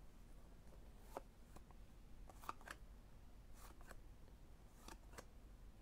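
Faint handling of cardboard trading cards: light ticks and soft card-on-card slides, spread irregularly, as cards are flipped through by hand.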